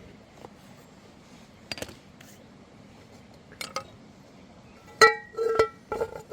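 Hard cooking utensils clinking together: a few light clicks, then several louder ringing clinks in the last second and a half.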